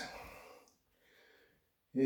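Near silence: quiet room tone between spoken words, with a word fading out at the start and a man's "yeah" beginning right at the end.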